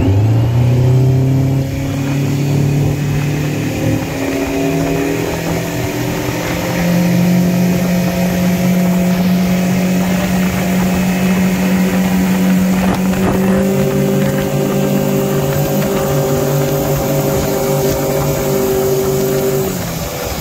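Outboard motor accelerating hard at full throttle from a standing start, its pitch climbing in steps as the boat gets onto the plane, then running at high revs with wind and water rush. Near the end the revs drop as the throttle comes back.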